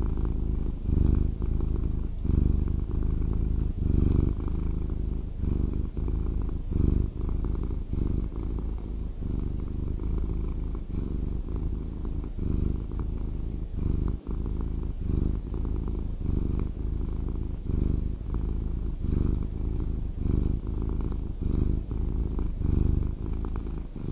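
Kitten purring steadily as it is petted, the purr swelling and easing about twice a second with its breathing.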